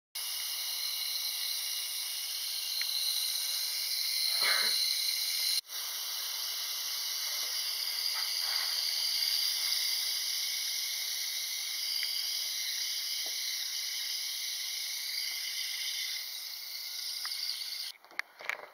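Steady hiss with a short break about five and a half seconds in.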